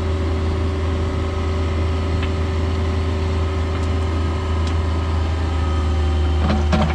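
Cat 304 mini excavator's diesel engine running steadily while it digs, a constant low hum.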